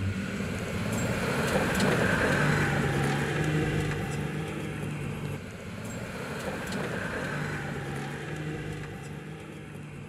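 Jeep Gladiator Mojave pickup driving on sand, its engine note holding steady in two long stretches, with scattered sharp ticks. The loudest part comes about two seconds in.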